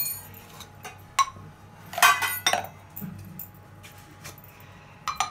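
A metal spoon clinking against stainless steel bowls and containers while spices are measured out. A few separate sharp clinks come at the start and about a second in, a louder clatter of several clinks about two seconds in, and one more near the end.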